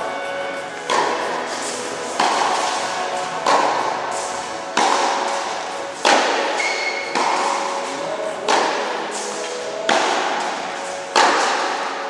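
Tennis balls struck back and forth in a rally, a sharp racket hit about every second and a quarter, each ringing out in the reverberant indoor tennis hall.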